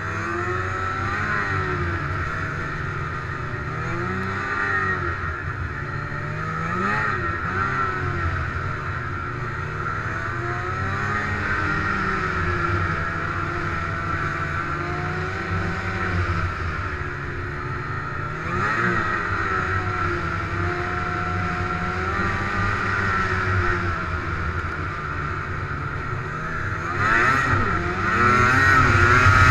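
Snowmobile engine running under way, its pitch rising and falling again and again with the throttle, getting louder near the end.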